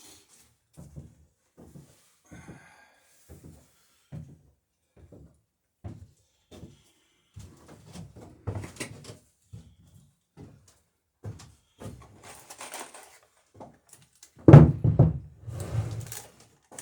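Soft, evenly spaced knocks, then more irregular ones, and a loud thud about fourteen and a half seconds in.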